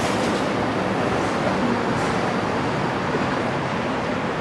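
Steady, even rumble of vehicle noise with no distinct events.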